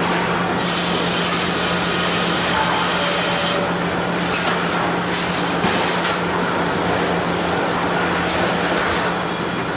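Sawmill machinery running steadily, with a constant low hum under broad mechanical noise.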